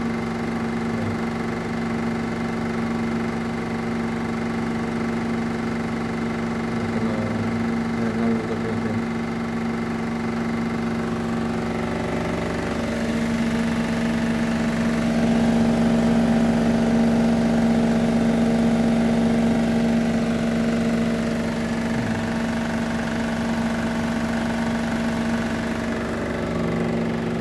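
Melag Vacuklav 31B autoclave's vacuum pump running steadily during the vacuum drying phase of a test cycle, a continuous low motor hum with a steady tone. It gets louder for several seconds in the middle.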